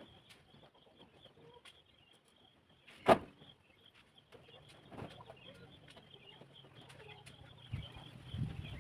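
Laying hens clucking in a chicken house, with a single sharp knock about three seconds in and a few low thumps near the end.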